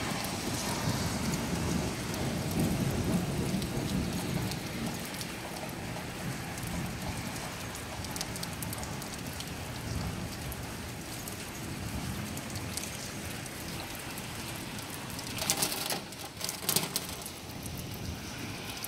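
Steady rain during a thunderstorm, with a low rolling rumble of distant thunder over the first few seconds. A few sharp knocks come near the end.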